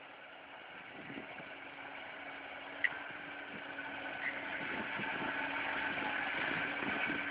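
John Deere tractor with an arm-mounted mowing head running steadily, getting louder as it comes closer. A single sharp click sounds just before three seconds in.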